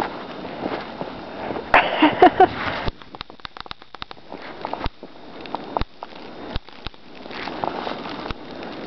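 Siberian husky moving about in deep snow right by the microphone: sharp crunches and clicks of snow, and sniffing. About two seconds in there is a short, loud vocal sound.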